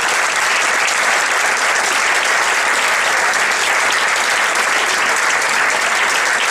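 Audience applause at a theatre curtain call, steady and unbroken, with the cast on stage clapping along.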